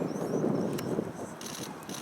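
A crowd of people walking, with irregular scuffing footsteps and wind buffeting the microphone.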